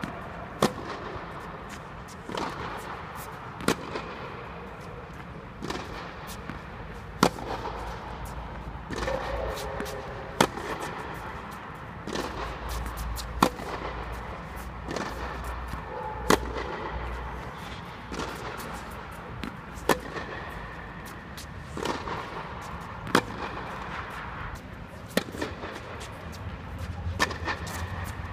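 Tennis balls struck by rackets in a steady rally. A loud hit comes about every three seconds, answered in between by a fainter hit from the far side of the court.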